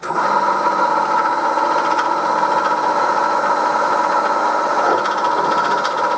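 Milling machine switched on and running steadily while a centre drill is fed into a cast iron cylinder cover, drilling a bolt hole.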